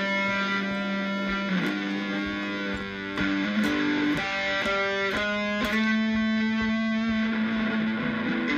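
Guitar music with held notes that change pitch every second or so.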